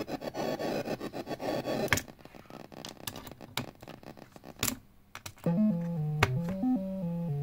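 Home-built SN76477 sound-chip synth module: a fast pulsing noise texture cuts off about two seconds in, followed by clicks and scratches as patch cables and switches are handled. About five and a half seconds in, a pitched synth tone starts, hopping up and down between pitches.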